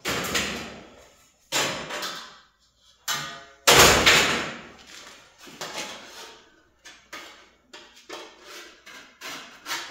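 Sheet metal and metal tools being worked by hand: a run of sharp knocks and clanks, some with a short metallic ring. The loudest clank comes about four seconds in.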